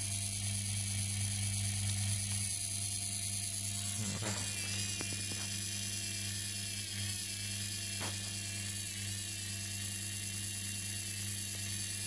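Washing machine universal motor running slowly at its lowest regulated speed under a TDA1085C speed controller, with a steady hum. A faint click comes about four seconds in and again about eight seconds in.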